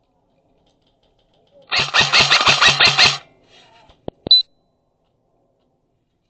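Airsoft electric gun fired in a full-auto burst of about a second and a half: the motor and gearbox whine with rapid, evenly spaced shots, about six a second. Two sharp clicks follow shortly after.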